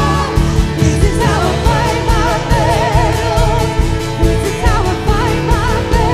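Live worship band: a woman singing with a wavering vibrato over electric guitar and keyboards, with a steady beat.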